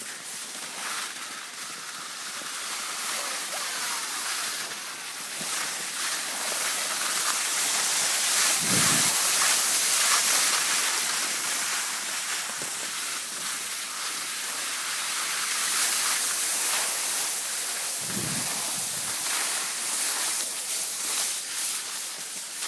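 Skis hissing over packed snow during a downhill run, mixed with wind rushing across the phone's microphone; the hiss swells and eases, with two short low rumbles about nine and eighteen seconds in.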